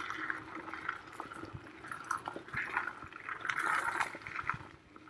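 Electric scooter rolling fast over a dirt and leaf-covered forest trail: irregular crackling and crunching from the tyres, with scattered small clicks and knocks. The noise swells briefly about three and a half seconds in.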